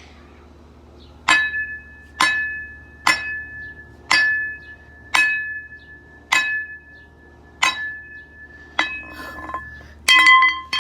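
A series of eight sharp strikes, about a second apart. Each leaves a short ringing note of the same pitch, with glassy, clinking overtones. Near the end comes a quick cluster of strikes ringing at several other pitches.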